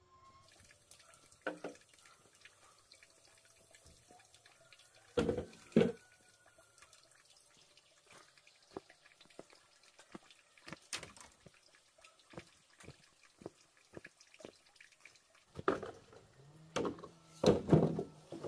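Water dripping and splashing, with scattered knocks and clatter; the loudest come about five seconds in and near the end.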